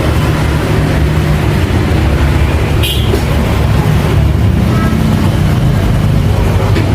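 Steady low motor rumble, with a single sharp metallic click about three seconds in.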